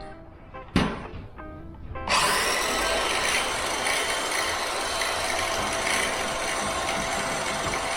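A sharp wooden knock about a second in, then a circular saw starts abruptly about two seconds in and runs steadily, cutting through an old 2x6 deck board.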